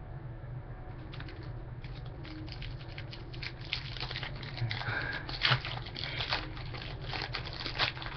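Foil wrapper of a trading-card pack crinkling and tearing as it is opened and handled, in a dense run of quick rustles. Two sharper crackles stand out, about five and a half and nearly eight seconds in, over a steady low hum.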